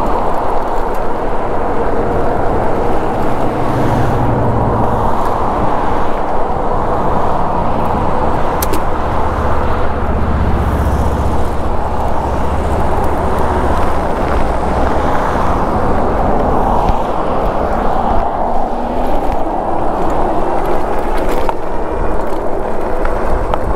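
Steady wind and road noise rushing over a helmet-mounted GoPro while riding an e-bike, with motor traffic passing, a low hum most noticeable about four and ten seconds in.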